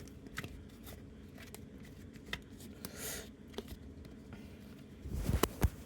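Small plastic clicks and scrapes from the parts of a dummy smartphone being handled and pried apart by hand. A brief rustle comes about three seconds in, and a quick run of louder sharp cracks and clicks follows just after five seconds.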